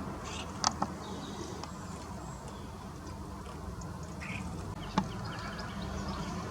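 Garden birds calling in short high chirps, with a few sharp clicks over a steady low background noise.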